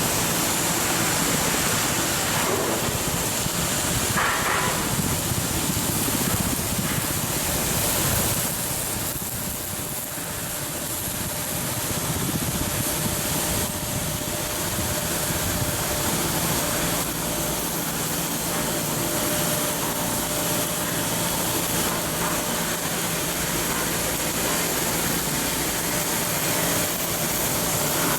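Steady machinery noise with a faint constant hum underneath, dipping slightly about a third of the way through.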